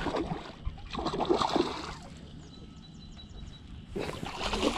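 Hooked largemouth bass splashing and thrashing at the surface while being fought on a rod. About halfway through comes a quieter stretch with a quick run of faint high ticks.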